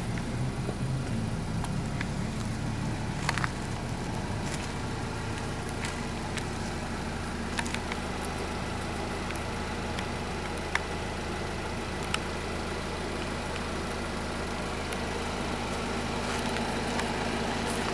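Vehicle engine idling steadily, with a few short, sharp clicks scattered through it.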